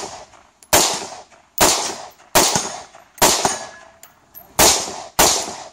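Semi-automatic rifle firing six shots, just under one a second, with a longer pause before the last two. Each shot is a sharp crack that trails off in an echo.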